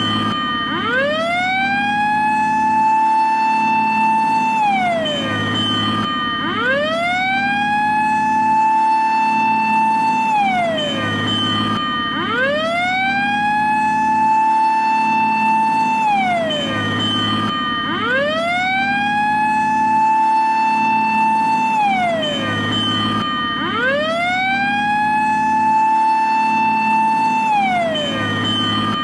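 Japanese fire engine siren wailing: each cycle rises to a held high tone for a couple of seconds, then slides back down, repeating about every six seconds. A steady low hum runs underneath.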